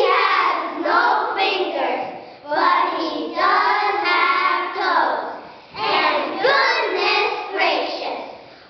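A group of first-grade children reciting a poem in unison in a sing-song chant, in three phrases with short breaks between them.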